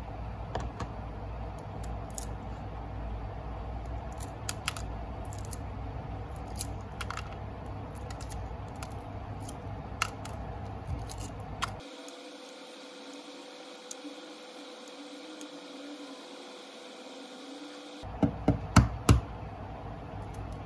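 Hard-boiled egg being peeled by hand, the shell crackling and snapping off in small sharp clicks. Near the end, four or five loud sharp taps as the next egg is knocked to crack its shell.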